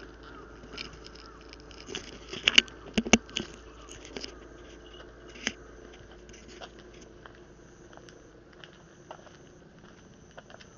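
An anti-animal garden net being pulled shut and fastened by hand. A cluster of sharp clacks and knocks comes about two to three and a half seconds in, with another near the middle, then scattered lighter ticks and rustles.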